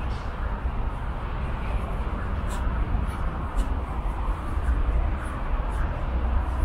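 Steady outdoor background noise: a low rumble under a hiss, typical of distant city traffic, with a few brief faint high ticks.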